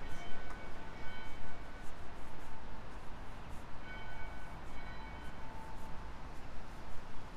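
City street ambience with a bell-like chime melody ringing over it, its notes coming in short phrases with pauses between them.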